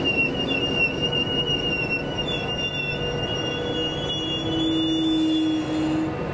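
Train wheels running on the rails with a high, slightly wavering flange squeal over a steady rumble; a lower steady hum comes in about four seconds in and stops shortly before the end.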